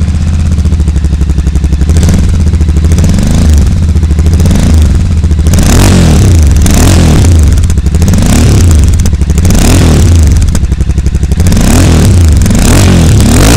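Royal Enfield Super Meteor 650's parallel-twin engine running through aftermarket stainless-steel Hurricane exhausts with a dB killer fitted in one silencer, revved from idle in repeated blips that rise and fall every second or two. The dB killer brings the exhaust note down.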